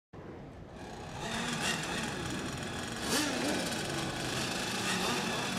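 Small engines of radio-controlled racing boats running on the water, a steady buzz whose pitch wanders up and down as the boats circle before the start.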